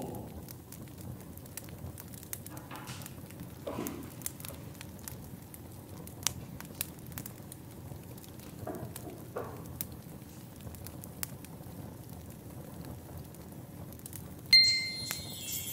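Soft crackling and scattered light clicks over a quiet room, with a couple of brief low murmurs. About a second before the end, jingling bells and chimes of Christmas music start suddenly and loudly.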